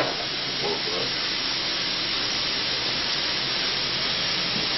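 Diced chicken breast sizzling in hot oil in a fry pan, a steady even hiss.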